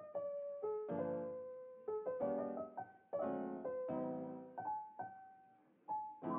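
Background piano music: a gentle keyboard melody of single notes and chords, each note struck and then fading.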